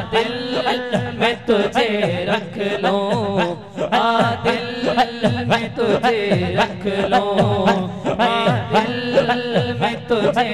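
Male voices singing a naat through microphones, a lead singer's wavering melody with other voices joining, over a steady beat of sharp clicks.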